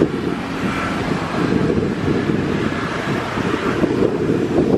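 Wind buffeting the microphone, a dense steady low rumble, over faint apron background noise.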